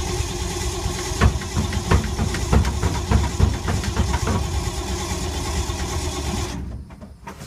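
1952 Ford's engine being cranked over by the starter, with irregular pops as it tries to fire but does not catch; the cranking stops suddenly about six and a half seconds in. A hard start after months of sitting, which the owner puts down to having flooded the engine.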